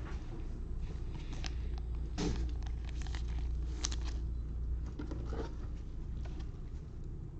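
Trading cards and pack wrappers being handled: scattered light clicks and rustles, over a steady low hum.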